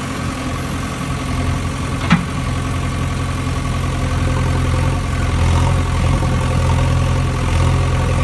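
Steady engine idling drone, with a single sharp knock about two seconds in.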